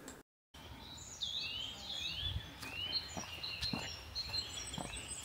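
Small birds calling, a run of short rising chirps repeated over and over, with a person's footsteps thudding about twice a second.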